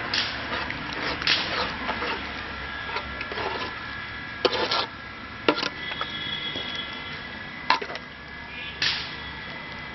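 A steel spoon stirring a thick, wet goat blood and intestine mixture in a metal pan, scraping and knocking against the pan now and then with short, sharp strokes at irregular intervals.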